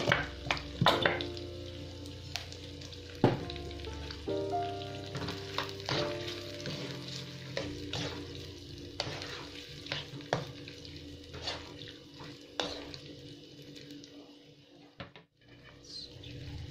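Meatballs and onion sizzling in sauce in a non-stick frying pan, with a wooden spatula knocking and scraping against the pan as they are stirred. The sound drops away briefly near the end.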